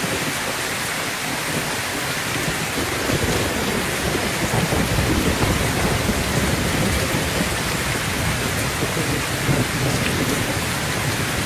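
Heavy rain pouring steadily onto a roof, with a low rolling rumble of thunder swelling in about three seconds in and continuing through most of the stretch.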